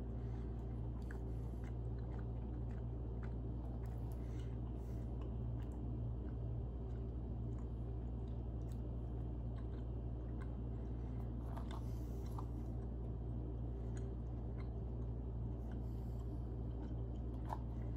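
A person chewing a soft gummy candy with the mouth closed: faint, scattered small wet clicks over a steady low hum.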